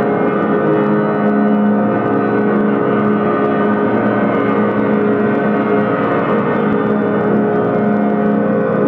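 Free improvised experimental music for prepared piano and cassette players: many sustained tones layered into a dense, steady drone that holds without a break.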